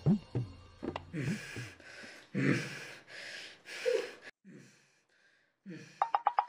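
A man panting hard while exercising: quick, heavy breaths about two a second, then a pause. A quick run of sharp clicks follows near the end.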